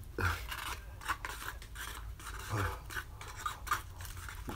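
Eating noodles: scattered scrapes and clicks of a fork against a foam bowl, with chewing.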